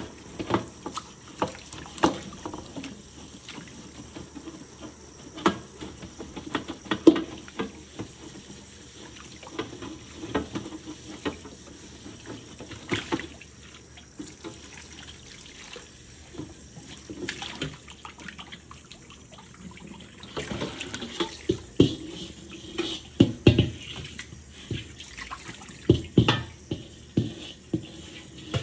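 Tap water running into a steel wok in a stainless-steel sink while the wok is scrubbed with a sponge to remove rust. Frequent sharp knocks and clunks of the wok against the sink come thickest and loudest in the last several seconds.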